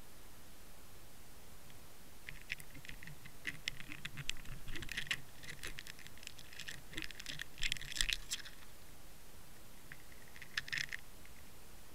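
Underwater, a run of rapid clicks and scratches as the camera housing knocks and scrapes over the stony seabed, with a shorter burst near the end, over a steady hiss.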